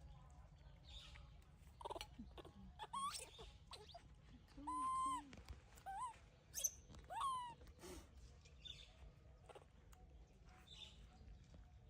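Baby monkeys calling: a series of short high-pitched calls, several rising in pitch, with one longer held call in the middle, among a few faint clicks.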